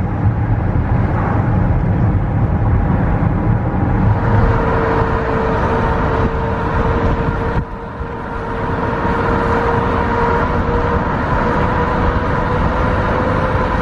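Steady road and tyre noise of a car driving on a wet road, heard from inside the car. About four seconds in a steady whine joins the noise, and the level dips briefly just before eight seconds in.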